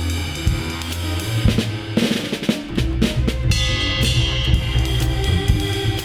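Live ensemble music: drum-kit hits (bass drum, snare, rimshots) over sustained low bass notes that change pitch a few times, with a brief noisy wash about two seconds in.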